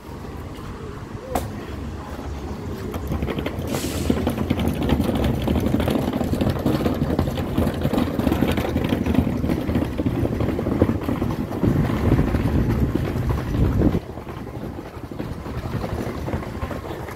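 Street traffic noise: a low, even rumble that swells a few seconds in, holds for about ten seconds and then drops off suddenly, with a single sharp click near the start.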